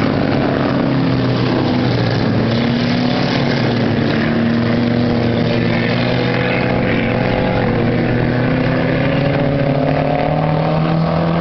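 Engines of several small race cars running on a dirt oval, their pitch rising and falling as drivers accelerate and lift through the turns, with a rise near the end.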